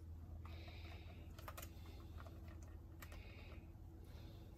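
Brake booster diaphragm and plate being handled and fitted together by hand: several short spells of soft rubbing and a few light clicks, over a faint steady low hum.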